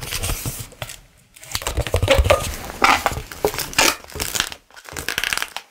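Long latex modelling balloon squeaking and rubbing as it is twisted by hand into a small bubble, in several irregular bursts with brief pauses.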